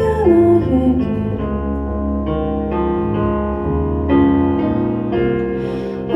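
Piano chords held and changed slowly, about once a second, as the song's instrumental ending, after the voice trails off at the start.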